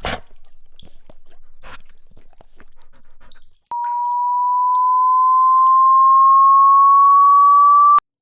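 Faint scattered ticks, then about a second in from the middle a pure electronic tone near 1 kHz starts suddenly, grows louder and rises slightly in pitch for about four seconds, and cuts off abruptly.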